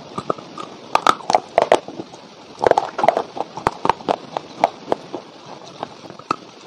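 Close-miked crunching and chewing of a dry block of edible clay: a run of sharp, crackling crunches, thickest in the first half and thinning out towards the end.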